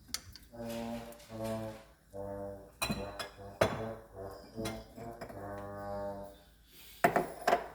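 A low brass instrument, trombone-like, playing a slow melody of separate held notes about half a second each. A few sharp clicks cut in about three seconds in and near the end.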